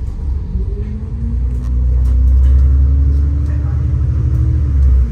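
City bus engine and drivetrain heard from inside the cabin: a loud low rumble with a whine that rises steadily in pitch as the bus accelerates, then drops suddenly near the end, as at a gear change.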